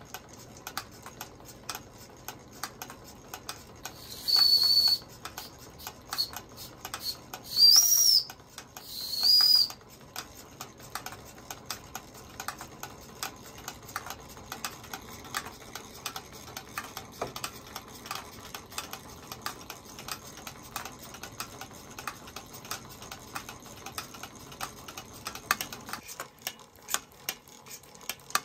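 Märklin 4117/8 live-steam toy engine running with its line-shaft drive models, a busy irregular ticking and clattering throughout. Its steam whistle is blown three times, short high blasts at about four, eight and nine seconds in, the middle one sliding up in pitch.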